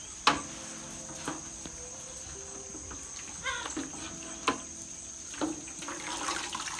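Crickets and other insects chirping as a steady high drone, with a few short, sharp knocks spread through it.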